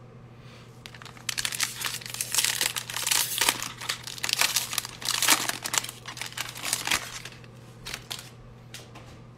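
Foil wrapper of a 2020 Panini Playoff football fat pack being torn open and crinkled by hand. It makes a dense crackle from about a second in to about seven seconds, then a few light rustles near the end.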